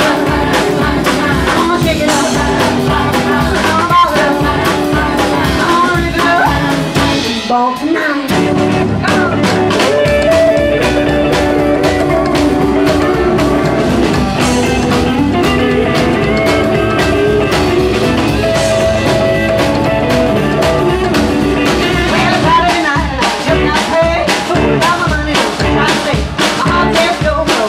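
Live rockabilly band playing, with electric and acoustic guitars, upright bass and drum kit. The band drops out briefly about eight seconds in, then comes back in.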